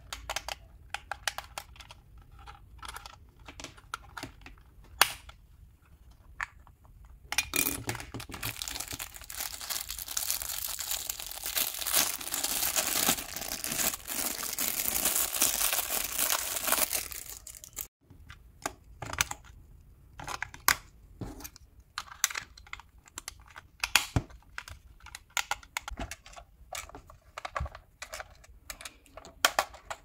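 Plastic wrapping crinkling and tearing as a shrink-wrapped pack of batteries is opened, a dense crackle lasting about ten seconds. Before and after it come scattered clicks and knocks of plastic toy parts being handled.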